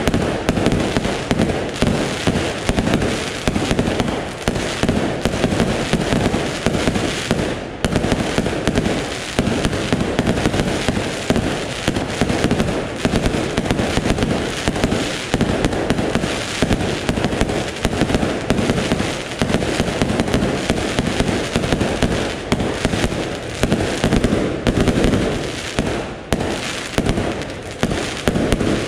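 Aerial fireworks display going off in a dense, unbroken barrage: rapid, overlapping bangs of bursting shells with only momentary breaks.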